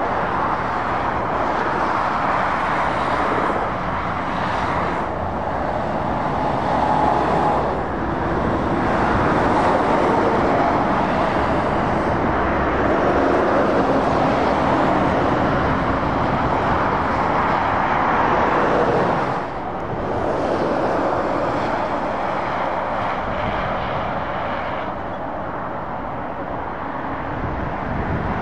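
Motorway traffic: lorries and cars passing close by with steady tyre and engine noise that swells and fades as each vehicle goes past, dipping briefly about two-thirds of the way through.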